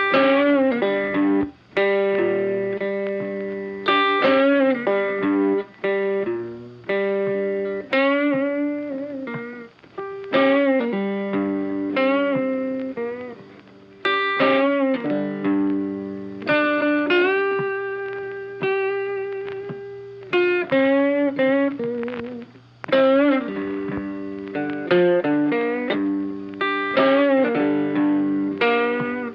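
Background guitar music: picked guitar notes and chords, with notes bent up and down in pitch.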